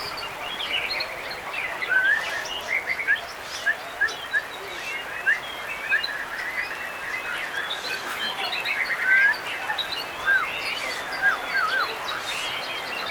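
Several white-rumped shamas singing at once: a dense tangle of overlapping whistles, chirps and short rising and falling phrases, some notes louder than the rest.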